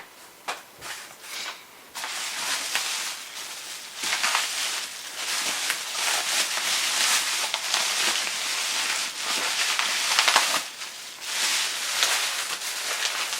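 Plastic packaging crinkling and crackling as it is handled and unwrapped, a dense run of fine crackles from about two seconds in, with a brief lull near the end.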